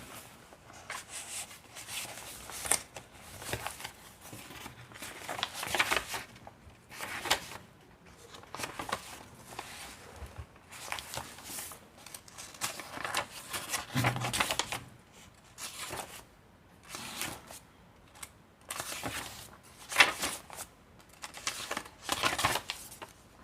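Paper pages, tags and journal cards of a handmade junk journal being handled and turned, giving irregular rustling and crinkling, with one louder rustle near the end.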